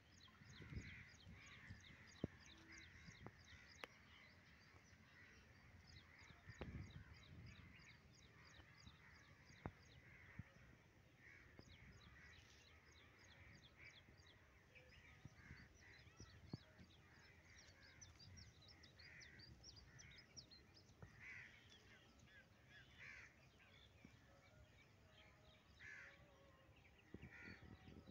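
Faint birdsong: a rapid run of quick high chirps, with crows cawing several times, mostly in the second half, and occasional low bumps.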